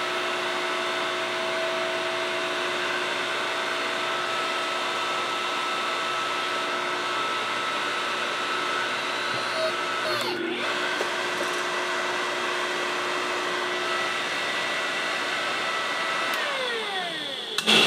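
Electric hydraulic pump of a jeweller's hydraulic press running steadily with a whine, driving the ram to press a silver blank into an impression die. It falters briefly about ten seconds in, then winds down with a falling pitch as it is switched off near the end.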